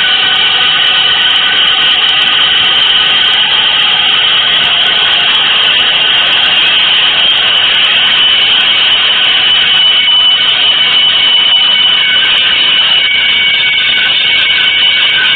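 Avant-garde noise music: a loud, dense, unbroken wash of hissing noise with several high held tones that shift slowly, with no beat or melody.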